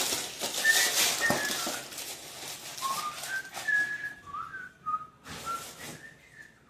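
A person whistling a tune, single notes stepping up and down, with rustling of packaging and food being handled in the first couple of seconds.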